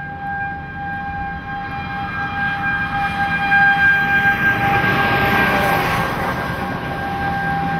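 Outdoor tornado warning siren sounding one long steady tone, growing a little louder and fading back as it sounds. A rushing noise swells over it in the middle.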